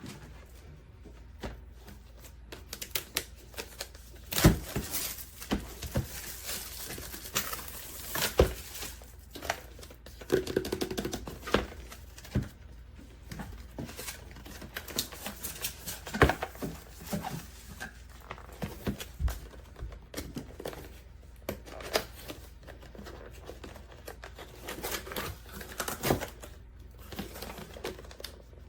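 Keys of a full-size AULA F108 Pro mechanical keyboard clacking in irregular typing, with a few louder strikes scattered through.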